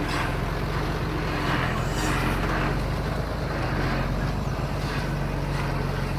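Diesel engine of a small Komatsu bulldozer running steadily, with a low, even drone and uneven patches of rattling noise over it.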